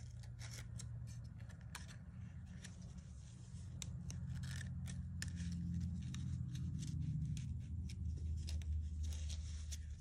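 A paper strip being woven over and under the cardstock strips of a basket-weave card base and pressed flat by hand: light paper rustling and many soft ticks of paper against paper, over a low steady hum.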